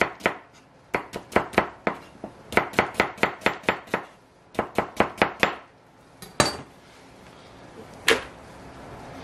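Chef's knife slicing a red onion on a plastic cutting board: quick runs of cuts, about four or five a second, broken by short pauses. After the slicing stops come two single, louder knocks.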